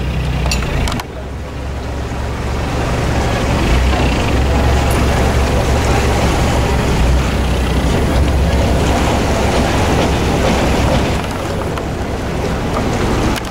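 Narrowboat's engine running steadily: a low rumble.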